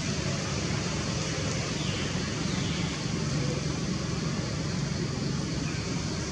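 Steady outdoor background noise: a low rumble with a hiss over it and no distinct events, of the kind that passing road traffic or wind on the microphone makes.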